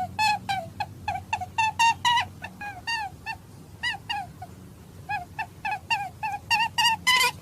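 Hare calling: a rapid series of short, high squeaks, each dropping in pitch, about three a second. They thin out in the middle and come thick again near the end.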